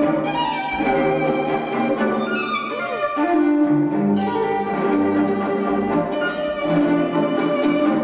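Orchestral ballet music with bowed strings to the fore, from a ballet gala performance.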